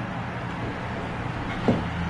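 Steady low background hum, with a single short soft thump near the end.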